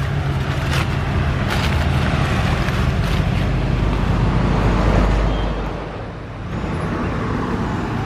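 Deutz-Fahr Agrolux 50 tractor's diesel engine running steadily, dipping briefly in loudness about six seconds in.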